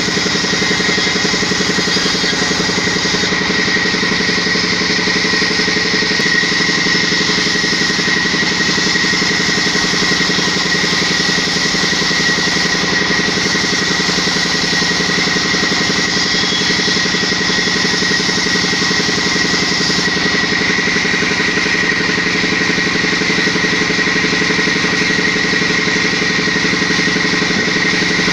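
A motor or engine running steadily at one constant speed, with a steady high whine over the hum.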